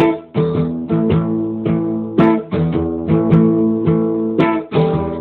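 Acoustic guitar strumming chords in a steady reggae-style rhythm, each stroke ringing on until the next.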